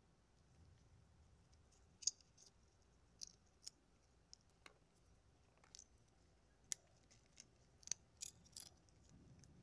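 Cat crunching popcorn: scattered sharp, crisp crunches at irregular intervals, the loudest about two seconds in.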